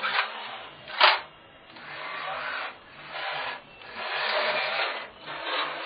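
Homemade combat robot's electric gear motors spinning its circular saw-blade cutters and driving it on concrete, a whirring that comes in spurts. A sharp knock about a second in is the loudest sound.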